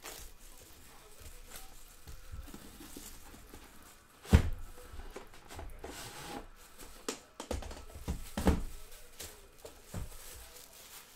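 Handling noise of a cardboard trading card box and its packs on a table: scattered taps and light rustling, with a sharp knock about four seconds in and another strong one past the middle.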